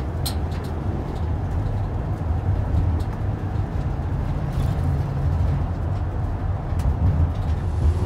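Steady low rumble of a vehicle cruising on a highway, heard from inside the cab: engine and tyre road noise.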